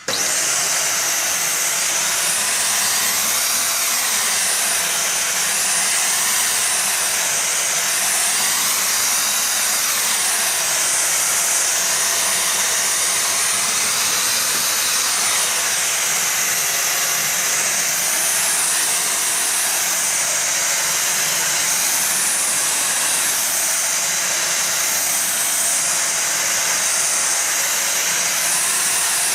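Midea MVC-SC861B 600-watt corded stick vacuum cleaner switched on and running steadily: a loud, high rush of air from its motor.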